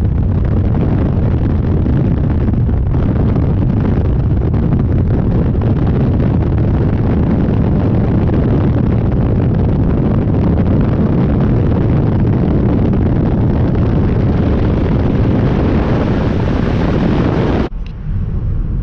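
Loud, steady rush of wind and road noise from a moving car, with wind buffeting the microphone. It cuts off abruptly near the end.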